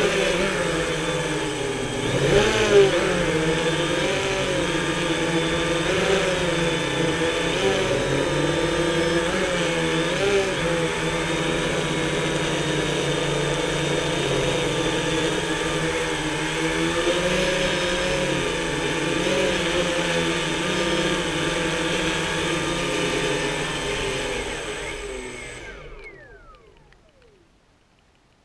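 Multirotor drone's electric motors and propellers whirring, their pitch wavering up and down as the craft manoeuvres. About 25 seconds in the sound fades and the motors spin down with a falling whine after the drone sets down in the grass.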